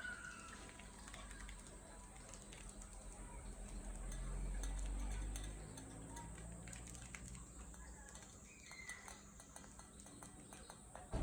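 A budgerigar giving two short, soft chirps, one at the start and one about nine seconds in, among many small clicks and taps. A low rumble runs from about four to six seconds in.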